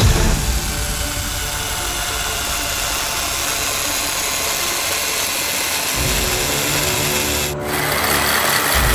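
Electric RC truck's brushless motor and direct-drive two-speed drivetrain whirring steadily as it spins the wheels freely off the ground on a stand, with a brief dip in level near the end.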